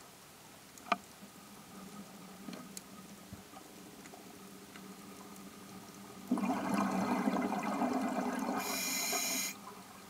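A scuba diver's exhaled bubbles rushing out of the regulator for about three seconds, starting about six seconds in and cutting off sharply, heard underwater. A single sharp click comes about a second in.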